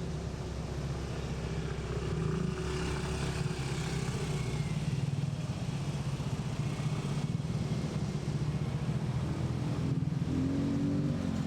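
An engine running steadily, its pitch rising and falling briefly near the end.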